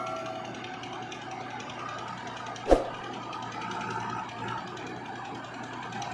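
Steady running noise from the diesel engines of a tractor and a backhoe loader standing at idle, with one sharp thump about two and a half seconds in.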